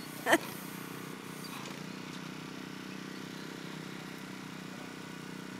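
A steady low engine drone, like distant traffic, with one short sharp sound just after the start.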